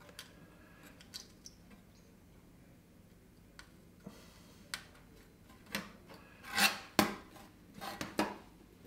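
Faint ticks and clicks of diode leads being fitted into a printed circuit board. Then a few louder scrapes and rubs as the board is handled and slid across the wooden bench top, about two-thirds of the way in and again near the end.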